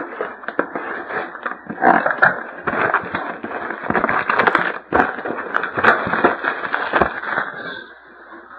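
Plastic shrink-wrap on a hockey card box crinkling and tearing as the box is unwrapped and opened. Dense crackling that eases off near the end.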